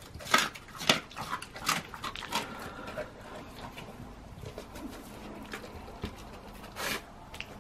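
A Volga Wolfhound eating: several sharp crunches and smacks of chewing in the first two and a half seconds, then quieter sniffing and mouthing, with a brief louder burst near the end.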